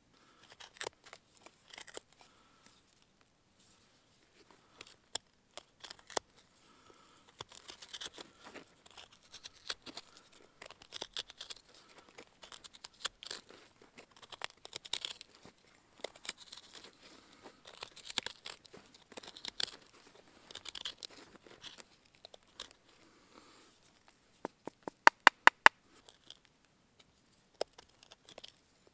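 Knife blade gouging and scraping out the end of a short round of wood: a run of short rasping strokes and small clicks as shavings are cut away. About 25 seconds in comes a quick run of about six sharp knocks, the loudest sounds.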